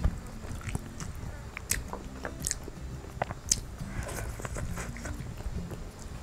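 Close-miked chewing and biting of braised chicken: irregular sharp mouth clicks as an elderly woman eats.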